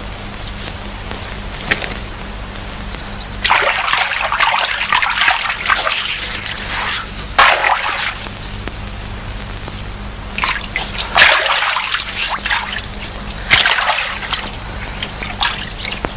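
Water splashing in irregular bursts as a man scoops and splashes stream water with his hands while washing, four spells of splashing a few seconds apart. A steady low hum runs underneath.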